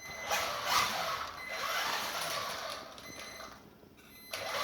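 Wltoys 12428 RC truck's electric motor and gears whining as it drives, its rear differential locked solid with JB Weld. The whine eases off about three and a half seconds in and picks up again near the end.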